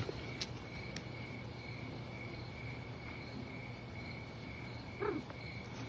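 A cricket chirping steadily in a high, even trill, with a couple of faint clicks early on and a short, faint sound about five seconds in.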